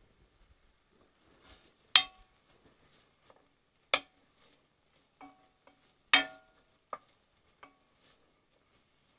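Wooden spoon knocking and scraping against an enamelled cast-iron Dutch oven while stirring diced onions. It comes as a series of sharp knocks, each with a short metallic ring; the loudest fall about two, four and six seconds in, with lighter taps between.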